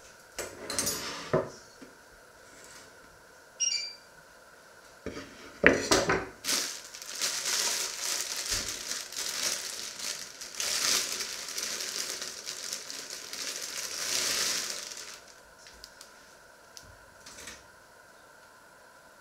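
Kitchenware knocking and clattering on a wooden counter twice, then a plastic bread bag crinkling and rustling for about eight seconds as it is handled.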